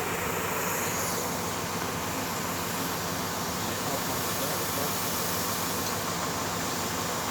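A steady engine running noise, even in level, with a low hum under it.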